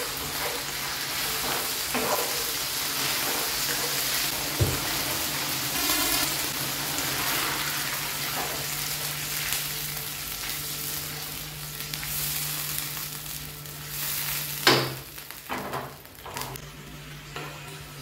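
Chopped garlic and oyster sauce sizzling in hot oil in a nonstick frying pan while being stirred with a wooden spatula. The sizzle eases over the last few seconds, with a sharp knock near the end followed by a few lighter knocks.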